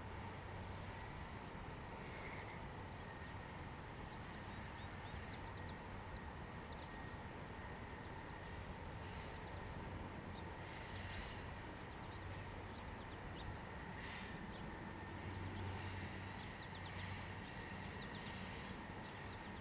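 Quiet outdoor background of a low, steady rumble with small birds chirping and twittering at scattered moments.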